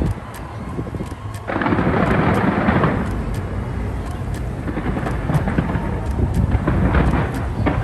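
Fireworks going off in a dense barrage: a continuous rumble of booms with crackling. It dips briefly at first, then surges louder about a second and a half in.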